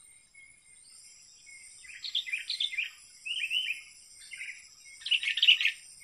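Sooty-headed bulbul (kutilang) singing: four or five quick phrases of bubbling, chirpy notes from about two seconds in, the loudest near the end.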